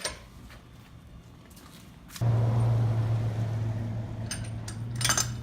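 A steady low mechanical hum starts abruptly about two seconds in and runs on, with a few light metal clinks near the end.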